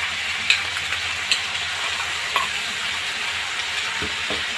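Vegetables and ginger, garlic, green chilli and onion pastes sizzling steadily in hot oil in a pan as they are stirred, with three sharp clicks of the spatula against the pan in the first half.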